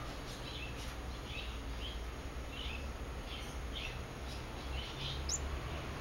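A small bird chirping: a series of short, high chirps at uneven intervals, about two a second, with one quick rising note near the end. A steady low hum runs underneath.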